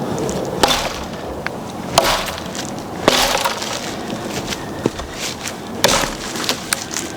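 Vintage Evansville axe chopping wood: a series of sharp strikes about one to one and a half seconds apart, each with a splintering crack.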